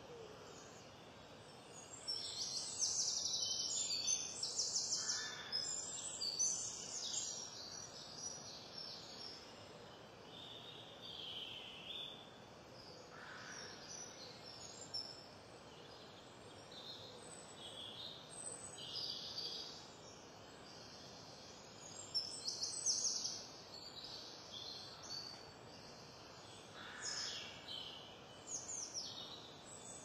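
Songbirds singing in woodland: short bursts of high, quick song phrases over a faint steady hiss. The busiest and loudest stretch is a few seconds in, with more bursts in the second half, some falling in pitch near the end.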